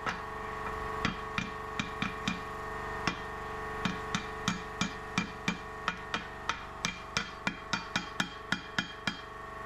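Hand hammer striking a red-hot steel bar laid over a cylindrical form, bending the forged curved piece of an excavator auger attachment back into shape. A few spaced blows, then from about four seconds in a steady run of about three blows a second, over a steady hum.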